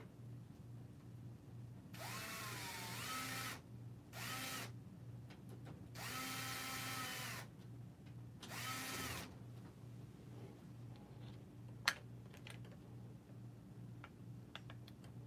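Small electric screwdriver or drill run in four short bursts, the first wavering in pitch, the later ones holding a steady whine. A single sharp click follows a few seconds later.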